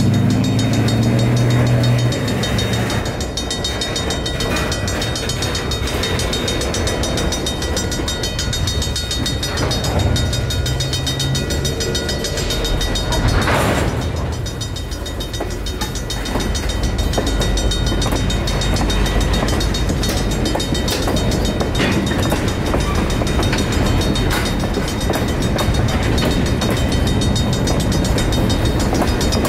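Freight cars rolling through a street grade crossing, a steady rumble with wheels knocking over the rails, one louder knock about halfway through. Over it, the crossing signals' RACO mechanical bells ring on in a rapid, steady strike.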